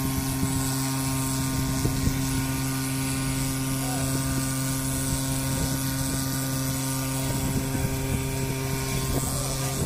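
Small engine running at a steady speed, a constant drone that holds one pitch.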